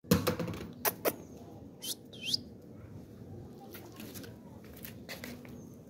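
A few sharp clicks in the first second, then two short, high bird chirps about two seconds in. After that come the soft, scattered clicks of a cat crunching dry kibble.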